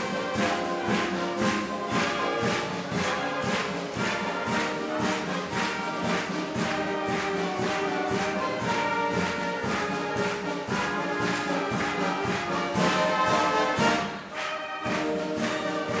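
Orchestral background music with a steady beat, dipping briefly near the end before picking up again.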